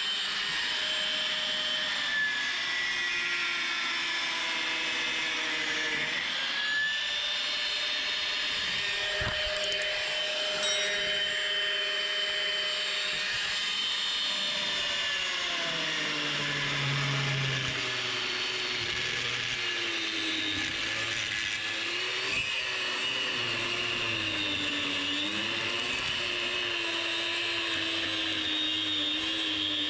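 Mains-powered angle grinder cutting into the hardened shackle of a Litelok X3 lock, which has fused ceramic under its coating. The motor runs steadily at first; about halfway through its pitch drops and then keeps wavering as the disc is pressed into the cut.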